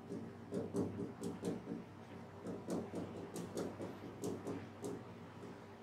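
Marker pen writing on a whiteboard: a string of short strokes and taps as letters and commas are written one after another.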